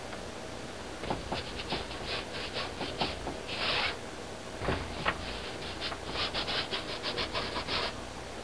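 Paintbrush scrubbing acrylic paint onto canvas in quick strokes, about six a second. The strokes come in several runs with short pauses between them, the longest run near the end.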